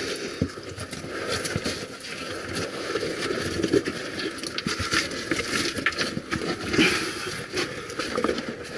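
Someone crawling on hands and knees over a rocky, gritty floor: clothing and gloves scraping and rustling, with many small clicks of grit and loose stones.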